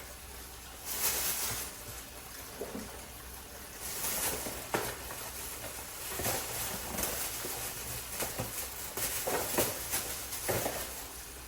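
Kitchen clean-up noise: intermittent rustling and clattering as items are handled, with a few light knocks.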